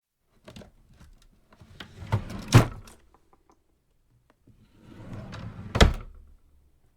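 A small drawer being slid open and shut twice. Each pass is a scraping, rattling slide that ends in a sharp knock as the drawer stops. The first pass has two knocks, the louder one about two and a half seconds in, and the second ends in a knock near the end.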